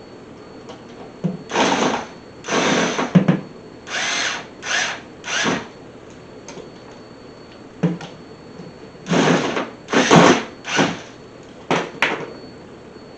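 Power drill driving screws in short bursts, two runs of four or five pulses each.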